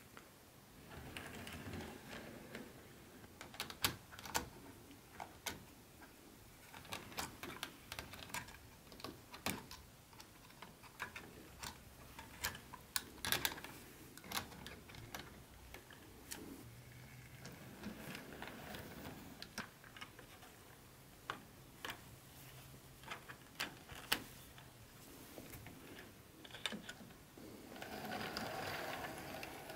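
Hornby OO-gauge Flying Scotsman model locomotive running laps of its track: a faint small-motor hum that swells each time it comes round, roughly every ten seconds, over a scatter of sharp clicks from the wheels crossing the rail joins.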